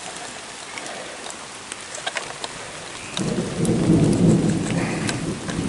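Steady rain falling, with scattered drop ticks. About three seconds in, a low rumble of thunder rolls in and keeps going, louder than the rain.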